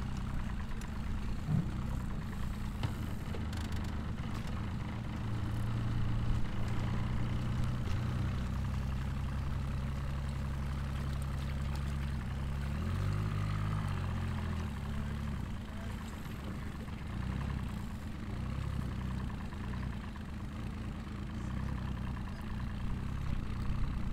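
Boat engine idling steadily close by, revving up briefly about thirteen seconds in and then settling back to idle.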